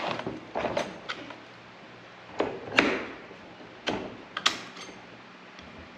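Clicks and knocks of a chisel bit being pushed and worked into the chuck of a Bauer hammer drill, a few sharp clicks every second or so, as the bit does not seat at first.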